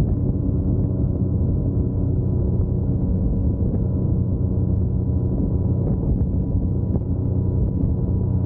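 2021 Yamaha MT-09's 890 cc inline-three engine running under way at steady revs, with road and wind noise.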